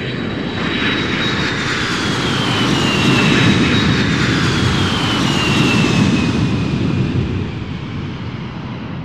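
Jet airliner passing low on its landing approach. The engine noise swells to its loudest around the middle and then eases, with a high whine that slides steadily down in pitch as the plane goes by.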